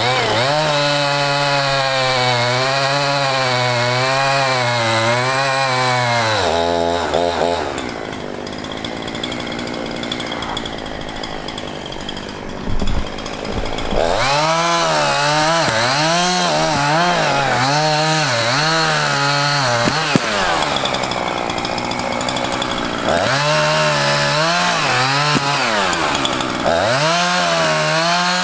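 Gas chainsaw cutting, its engine pitch wavering up and down under load. It eases off about six seconds in, cuts again from about fourteen seconds to twenty, and once more from about twenty-three seconds.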